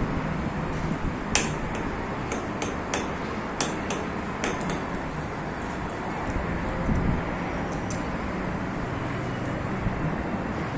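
Steady background noise with a string of about seven sharp clicks in the first half.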